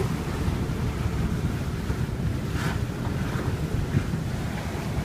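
Strong wind buffeting the microphone on a sailboat under way, over the steady rush of water along the hull. A few splashes of spray come through about halfway in.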